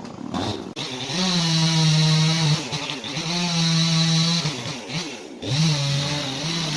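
Gas chainsaw run at high revs, its engine note dropping briefly twice and revving back up.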